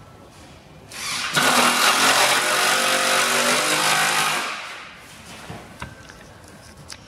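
Corded electric drill driving a screw into the wooden wheel chock of a motorcycle crate. It runs at a steady pitch for about three and a half seconds, starting about a second in, then winds down, followed by a couple of small clicks.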